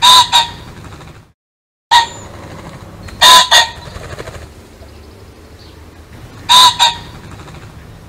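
Male pheasant calling: three loud, harsh two-note calls about three seconds apart, each a longer note followed at once by a shorter one. A single short note comes about two seconds in, just after a brief break to silence.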